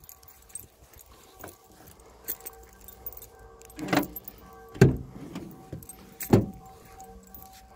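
Jangling and clinking as a van's door is opened, with three short knocks, the loudest about five seconds in.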